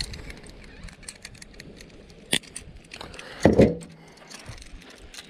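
Small metallic clicks and clinks of fishing tackle being handled during a lure change: snap clip, wire leader and lure hooks. A sharp click comes about two seconds in, and a brief louder burst about three and a half seconds in.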